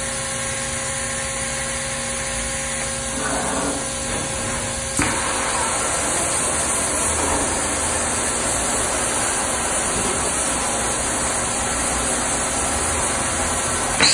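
Peddinghaus ABCM1250 beam coper running with a steady hum, then about five seconds in a sudden loud steady hiss as the cutting torch's gas flow comes on and it starts cutting the steel beam. A sharp pop near the end.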